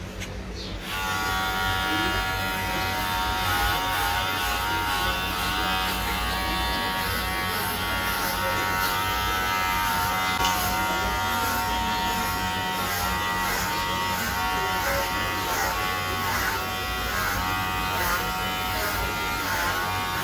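Electric hair clippers start about a second in and run with a steady buzz, wavering now and then as the blades cut through hair for a buzz cut.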